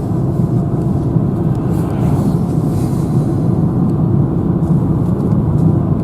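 Steady low rumble of road and engine noise heard from inside a car's cabin while driving.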